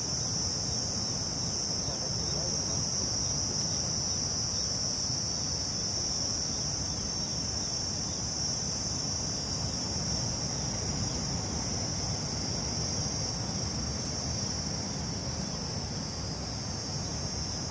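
Insect chorus giving a steady, unbroken high-pitched drone, over a low rushing background noise.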